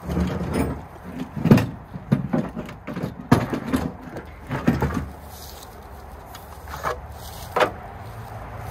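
Power tools being shifted around in a pickup truck bed: a run of irregular clunks and knocks as the equipment is moved and the pole saw shaft is pulled out, then two single knocks near the end.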